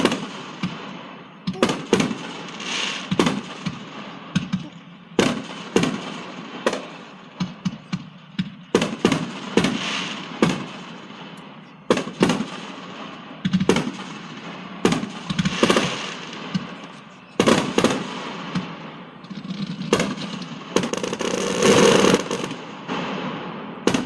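Fireworks going off in the distance: many sharp bangs and crackling, with a dense run of crackles near the end.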